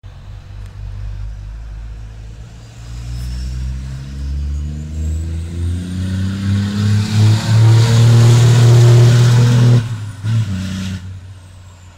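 Scania XPI race truck's turbocharged diesel engine accelerating hard in a turbo-lag test. The engine note climbs steadily in pitch and loudness over several seconds, with a faint whistle rising above it from the BorgWarner S400SX3 turbo. It cuts off sharply about ten seconds in, gives one short blip, and then winds down.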